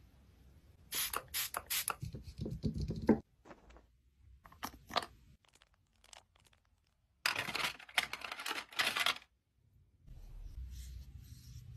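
Close-up scratchy rubbing and scraping as makeup tools and a towel are worked against a mango, in two runs of rapid strokes of about two seconds each, with a few short clicks between them.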